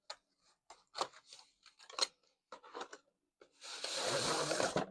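Cardboard box and packaging being handled as the box is opened and emptied: short rustles and knocks, then about a second of loud scraping rustle near the end.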